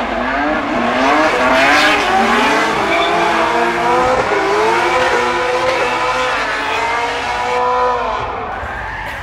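A car engine revving hard, its pitch wavering up and down, with tyres squealing, as in a drifting run. It eases off near the end.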